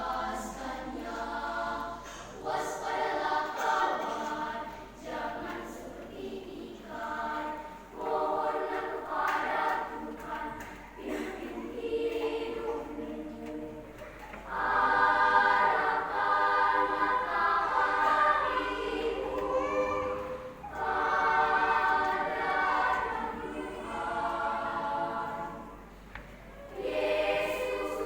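Children's choir singing in phrases with short breaths between them, the singing fuller and louder from about halfway through.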